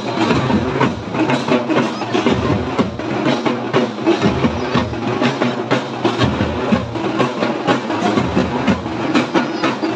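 Drums beating a steady, fast rhythm over the dense noise of a large crowd.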